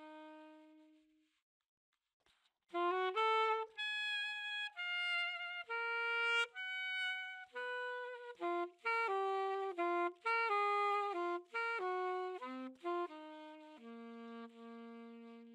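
Alto saxophone played unaccompanied, a jazz melody of separate notes. A phrase dies away about a second in, and after a short pause a new phrase begins that ends on a long held low note.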